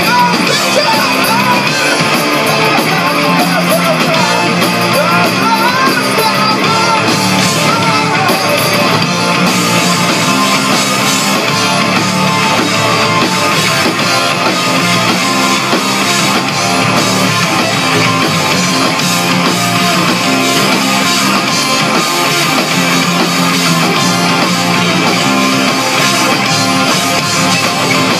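Live rock band playing loud, with electric guitars, bass and drums, and a sung vocal line over the first several seconds.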